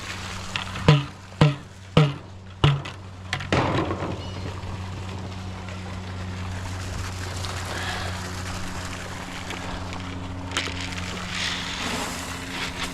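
Four sharp knocks, each with a short ring, in the first three seconds as a feed container is knocked out. Then a steady low hum with a faint hiss.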